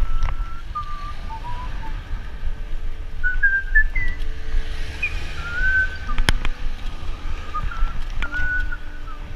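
A person whistling a tune in short phrases of gliding single notes, over a steady low rumble, with a sharp click about six seconds in.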